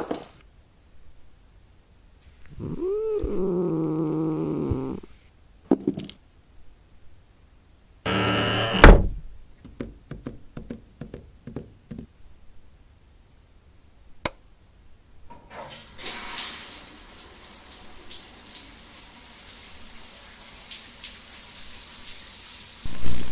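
A cat gives one long meow whose pitch rises and then falls. Several seconds later a short whooshing burst ends in a heavy thud, followed by scattered light knocks and a sharp click. From about two-thirds of the way through, a steady hiss sets in.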